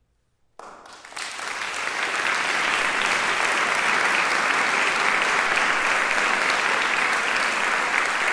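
Audience applause breaking out about half a second in after near silence, swelling over a second or so and then holding steady.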